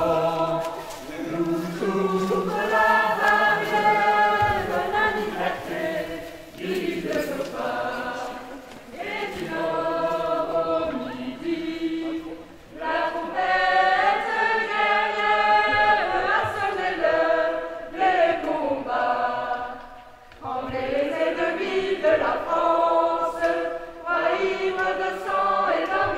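Voices singing a song together, in long held phrases with short breaks between them.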